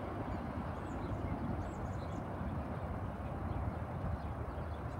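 Steady low outdoor background rumble of the city, with a few faint, short, high bird chirps scattered through it.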